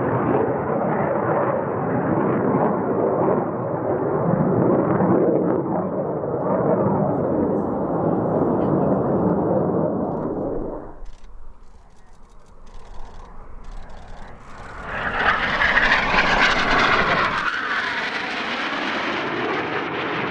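Military jet aircraft making low, fast passes, their engines a loud, steady noise. The noise drops away for a few seconds just past halfway, then swells to its loudest and brightest as another jet passes close, and eases off near the end.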